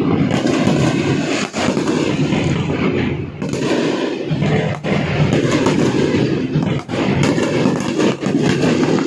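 Fireworks going off in a dense, continuous barrage of overlapping bangs and crackling, with no pause.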